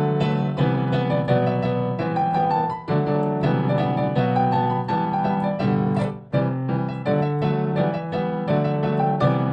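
Small 32-key keyboard piano playing an upbeat pop melody over bass notes, sped up to 1.2 times normal speed, with two brief breaks in the playing.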